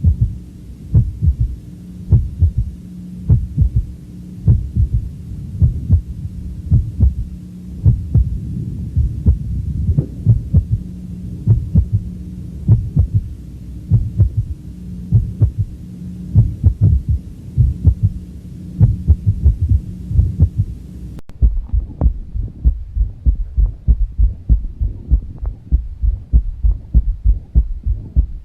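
Recorded heart sounds with a third heart sound (S3): each beat gives a run of low, dull thuds in a galloping rhythm, the extra sound falling just after the second heart sound. In adults an S3 gallop is typical of rapid early filling of a stiff or overloaded ventricle, as in heart failure. A steady low hum lies under the beats until about 21 seconds in, where the recording switches to a cleaner one.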